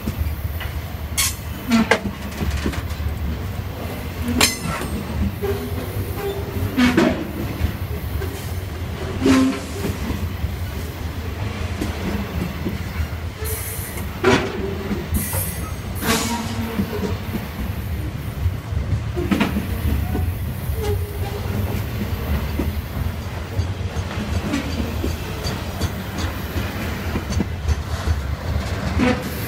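Long freight train's wagons rolling past: a steady low rumble of wheels on rail, with irregular clacks and knocks as the wheels pass over rail joints, and two brief high screeches from the wheels around the middle.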